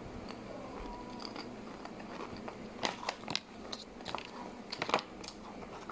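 A child biting and chewing crunchy potato chips (Crispy Patata), with a run of sharp crunches from about three seconds in.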